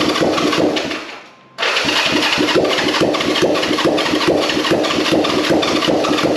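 Electric starter cranking the 1965 Honda CB450's parallel-twin engine with a steady whine and a rhythmic beat; it stops about a second in and starts cranking again half a second later. The engine turns over without catching.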